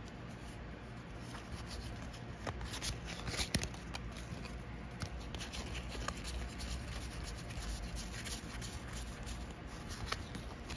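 Stiff board game cards being thumbed through and fanned out by hand: soft papery slides and light flicks, scattered irregularly.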